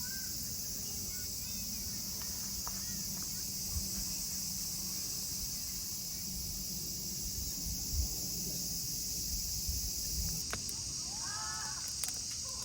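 A steady, high-pitched chorus of summer insects shrilling without a break, over a low rumble. A few quick bird chirps come near the end.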